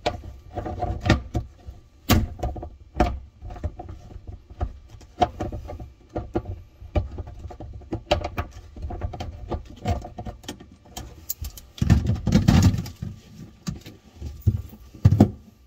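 Irregular clicks and knocks of a hand wrench turned on a kitchen faucet's mounting nut to loosen it, with a louder rattling cluster about twelve seconds in and another near the end.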